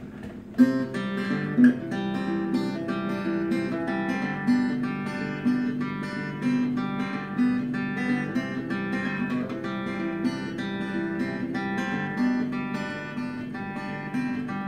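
Acoustic guitar played solo in a steady rhythm, starting about half a second in: the instrumental intro of a song.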